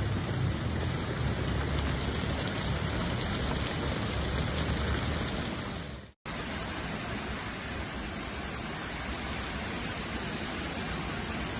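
Steady rushing noise of hurricane wind and heavy rain, with a low rumble in the first second or so. It breaks off in a brief silence about six seconds in, then resumes as an even rain-like hiss.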